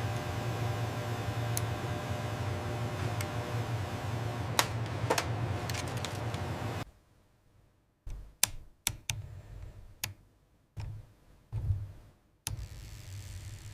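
A steady low hum with a few sharp clicks cuts off about seven seconds in. After a short quiet gap comes a run of separate clicks and knocks from mechanical keyboard keys being pressed, and the hum returns near the end.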